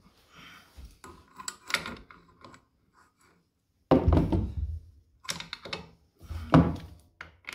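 A few separate knocks and clunks of hand tools and metal parts being handled around the scooter's belt-drive side. The loudest come about four seconds in and about six and a half seconds in.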